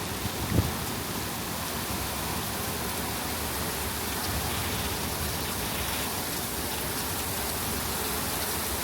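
Rain falling steadily during a thunderstorm, an even hiss, with a brief low thump about half a second in.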